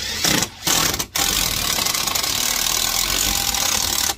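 Compact Milwaukee impact driver hammering a self-tapping stainless steel screw through a generator inlet box into the trailer's diamond-plate wall. Two short bursts come first, then it runs steadily for about three seconds and stops suddenly.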